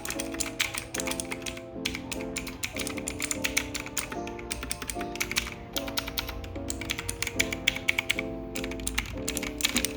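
Rapid typing on a mechanical keyboard: a dense, irregular stream of key clicks, heard over background music.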